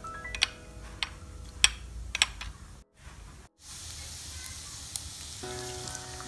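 A metal spoon clinking four times against a small bowl while stirring; then, after a short break, chicken pieces sizzling steadily in a frying pan.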